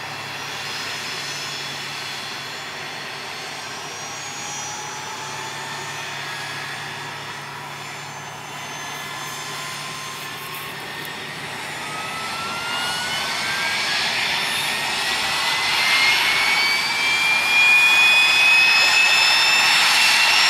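Mil Mi-26 helicopter's turbine engine spooling up on start: a whine of several tones rising steadily in pitch, growing louder from about halfway through.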